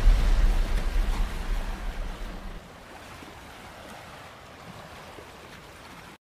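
A deep, loud boom's low rumble dying away over the first two and a half seconds, leaving a faint steady wash of sea surf that cuts off abruptly near the end.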